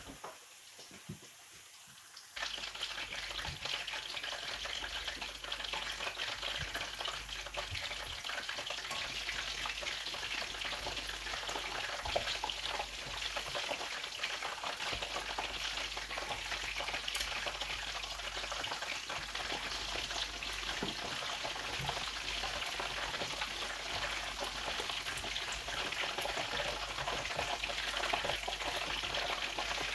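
Chicken frying in hot oil: a dense, steady crackle and sizzle that starts suddenly about two seconds in, after a few light knocks.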